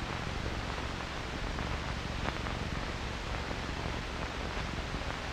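Steady hiss and low hum of an old film soundtrack, with a faint click about two seconds in.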